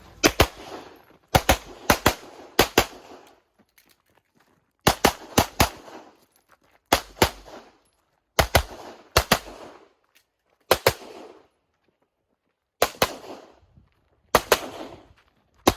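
Single-stack 1911-style pistol fired in a practical-shooting stage: sharp shots, mostly in quick pairs, in bursts separated by pauses of one to two seconds as the shooter moves between targets. Each shot rings with a short echo.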